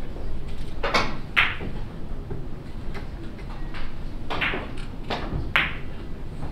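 Three-cushion carom billiards shot: a cue tip strikes the cue ball about a second in, followed at once by a sharp click of ball on ball, then more hard clicks of the balls over the next few seconds, three of them close together near the end.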